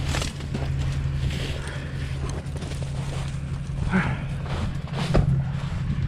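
Footsteps crunching through snow and brushing past dry brush, with irregular crunches and snaps, over the steady low hum of an idling pickup truck engine.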